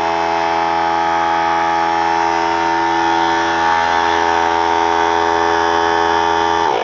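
A 3-gallon oilless pancake air compressor running, a freaking loud, steady buzzing hum from its motor and pump. It shuts off near the end, the pitch dropping briefly as it stops.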